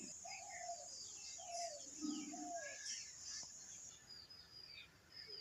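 Faint outdoor birdsong: many short, quick chirps and a few lower, falling calls, over a steady high-pitched insect drone that stops about four seconds in.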